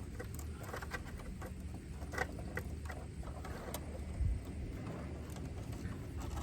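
Small scattered clicks and taps of hands fishing wiring through the car's trim, over a steady low rumble, with one dull low thump about four seconds in.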